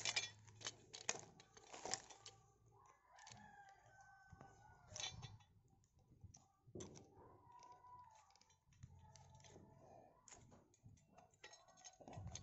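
Faint metal clicks and scrapes from a screwdriver levering a tight clamp ring onto an angle grinder's gear head. A rooster crows in the background twice.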